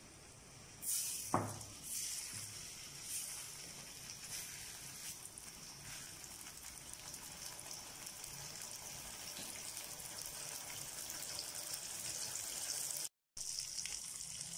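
Marinated quail pieces sizzling as they fry in shallow hot oil: a faint, steady hiss that slowly grows, with a spoon or piece clunking into the pan about a second and a half in. The sound drops out briefly near the end.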